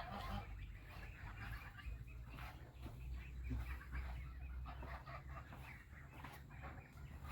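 Chickens clucking, a scatter of short calls.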